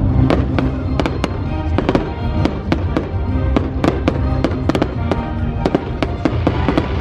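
Aerial firework shells bursting in a rapid series of sharp bangs, about three a second, with music playing underneath.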